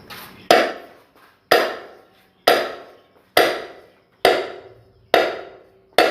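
Hammer tapping: seven evenly spaced sharp strikes about a second apart, each ringing out briefly.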